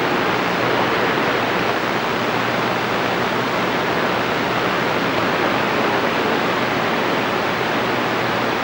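Steady hiss of static from a CB radio's speaker, the receiver open with no station coming in.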